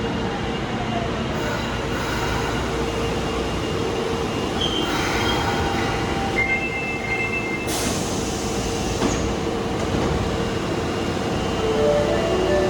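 Osaka Metro Tanimachi Line subway train running into the platform. Its wheels and brakes squeal with several steady whining tones over the rumble of the cars, and the tones shift lower near the end as it slows.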